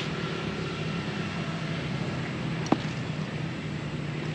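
A steady low hum of background noise, with one sharp click a little over halfway through from hands handling the drone and its parts while the propellers are being fitted.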